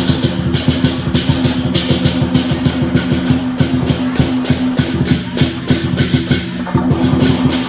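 Lion dance percussion: a drum and cymbals beaten in a fast, even rhythm, several strokes a second, over a steady ringing tone.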